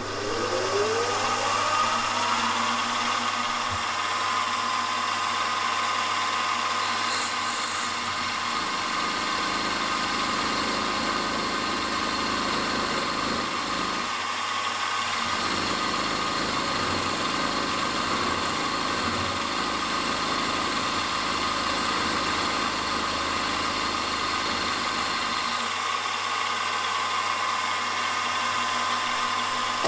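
Milling machine spindle spinning up with a rising whine, then running steadily while a quarter-inch end mill cuts a slot in a metal flywheel. The cutting noise comes in about eight seconds in, breaks off briefly about halfway, and stops a few seconds before the end while the spindle keeps running.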